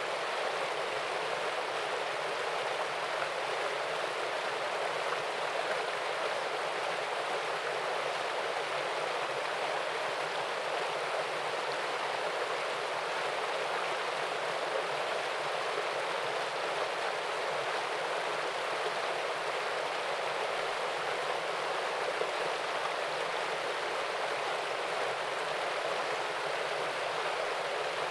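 Small waterfall splashing into a stream, a steady unbroken rush of water.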